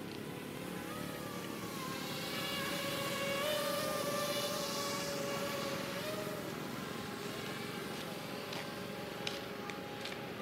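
DJI Ryze Tello mini quadcopter's propellers whining as it flies low past: a high buzzing tone that swells to its loudest in the middle and fades away in the second half, over a steady rush of wind.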